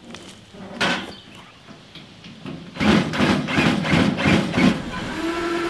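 Galvanized metal feeders and wooden boards being handled and set on a wooden pallet: a single knock about a second in, then a run of irregular knocks and scrapes about three seconds in. A steady low hum comes in near the end.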